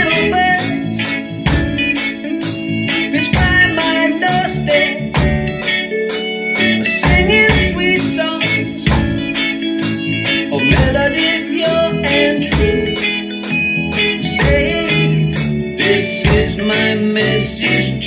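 Drum kit played along to a reggae backing track with organ chords, hi-hat or cymbal strokes keeping a steady beat of about three a second.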